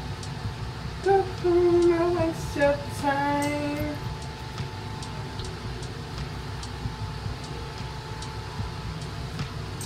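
A woman singing a short wordless phrase of a few held notes, starting about a second in and lasting about three seconds, over a steady low hum.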